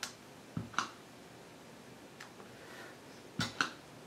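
Clear acrylic stamp block tapping down on cardstock over a work surface as icons are stamped: a handful of light taps and clicks, two close together about half a second in and two more near the end.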